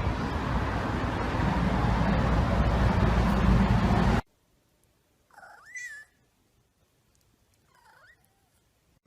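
A domestic cat meowing twice: a fuller call that rises and falls, then a fainter, shorter one. Before the meows, a loud, dense noise cuts off suddenly about four seconds in.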